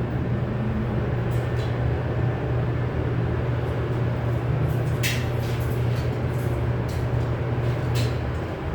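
A steady low machine hum with a few light clicks and knocks over it; the hum eases off right at the end.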